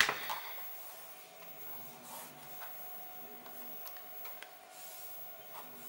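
Faint rubbing of fingertips pressing strips of double-sided tape down onto a hardboard backing board, with a few soft clicks.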